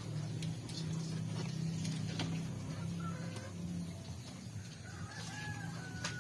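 Chickens clucking, with a rooster's drawn-out crow starting about five seconds in, over a steady low hum. A kitchen knife taps a few times on a plastic cutting board while slicing raw pork.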